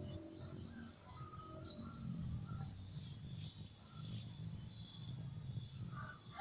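Insects droning steadily at a high pitch, with a few short bird chirps about a second and a half in and again near five seconds in.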